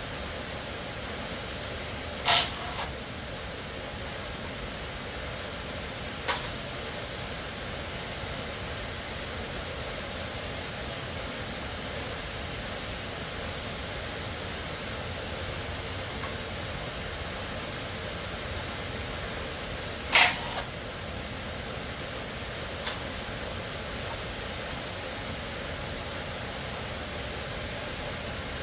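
Steady hiss with four sharp clicks or knocks, the loudest about twenty seconds in.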